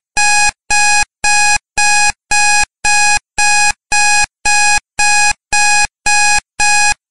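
Digital alarm-clock beeping as a countdown timer reaches zero: a steady run of identical beeps, all at one pitch, about two a second.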